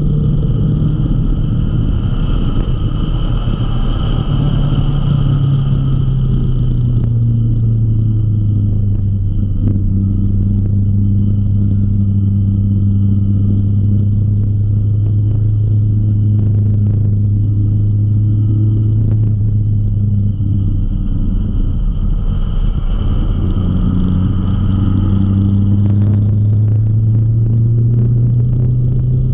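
Motorcycle engine running steadily at road speed. Its note drops a little a few seconds in, holds, then rises again near the end.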